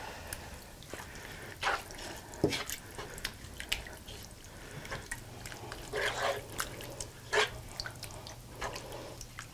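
Wooden spoon stirring dried chipped beef in milk in a nonstick skillet: irregular soft scrapes and taps against the pan, with the liquid sloshing.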